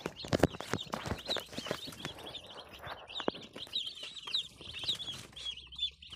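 A brood of day-old chicks, less than a day out of the egg, peeping continuously in a dense chorus of rapid, high, short chirps. A few sharp knocks sound in the first second or so.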